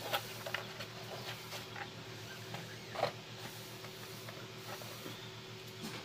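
Light clicks and small taps of a graphics card's metal bracket and screw being handled and fitted, with a sharper click at the start and another about three seconds in, over a steady low hum.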